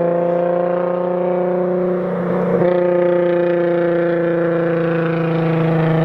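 12-valve VR6 engine with a modified exhaust running at steady revs, its pitch creeping slightly upward, with a brief rough break about two seconds in.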